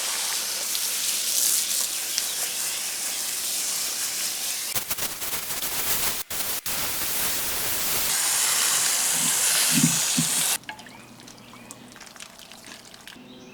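Water spraying from a hose onto a window air conditioner, a steady loud hiss that cuts off suddenly about ten and a half seconds in.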